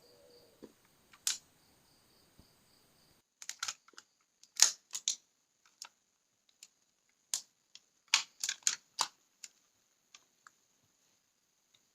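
A series of sharp, irregular clicks and taps, several close together, with a faint high steady whine behind them.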